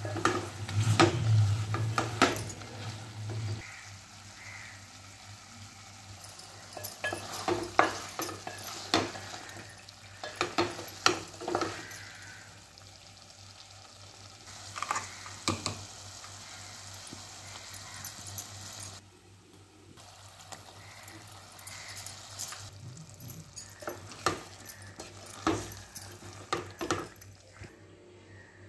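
A spatula stirring and scraping chicken curry in a metal pot, in bunches of clinks and scrapes against the pot with quieter gaps between, over the sizzle of the frying masala.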